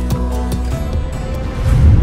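Background music with held, steady notes. Near the end a low rumbling swell from the outro animation's sound effect builds up.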